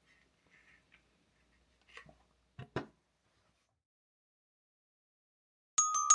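A few faint taps and two short clicks in a quiet room, then bright, ringing glockenspiel-like music notes start near the end.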